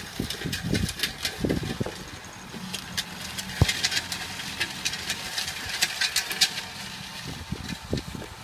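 Farm tractor's diesel engine running steadily under load as it pulls a disc harrow through the field, with scattered sharp clicks and irregular low thumps over the hum, one click standing out about three and a half seconds in.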